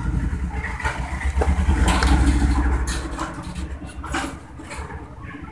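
Screwdriver work on the set screw of a tower fan blower's brass shaft coupling, being tightened onto the motor shaft: a low, uneven rumble that peaks about two seconds in and then fades, with a couple of short clicks.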